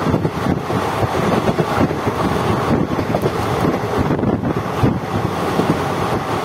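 Passenger train coach running at speed, heard from its open doorway: a steady rumble of wheels on the rails, with wind buffeting the microphone.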